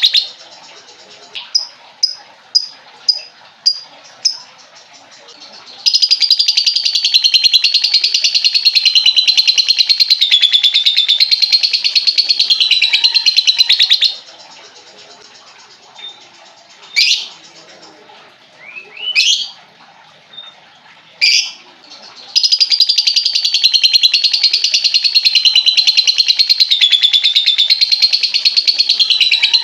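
Lovebird ngekek: long stretches of rapid, continuous high chattering, each lasting about eight seconds. Between them come a string of about six short chirps and three quick rising calls.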